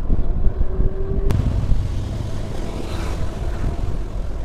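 Low rumbling wind noise on the microphone with tyre noise from an Ola S1 Pro electric scooter riding downhill. A short steady whine ends in a sharp click about a second in.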